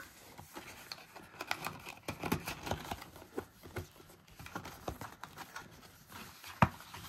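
Hands handling an opened Pokémon booster box and its foil-wrapped packs: soft rustling with scattered small taps and clicks of cardboard and foil, and one sharper tap about six and a half seconds in.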